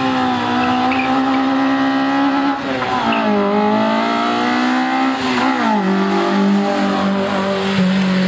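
Small hatchback race car's engine accelerating hard away from the start, pitch climbing in each gear, with two upshifts, about three seconds in and again about five and a half seconds in.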